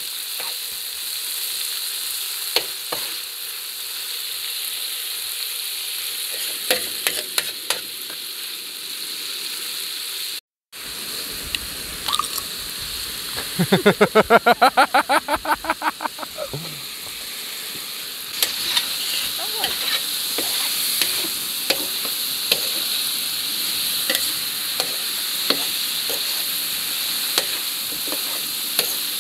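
Fatty pork cuts and pork leg cubes sizzling steadily as they sear in a wide plough-disc paella pan over a wood fire, with scattered clicks. Midway through, a loud burst of rapid rhythmic pulses lasts about two seconds.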